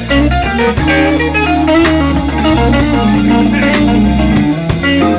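Blues band playing live between sung lines: a guitar picks a run of single notes over a held bass line and drums.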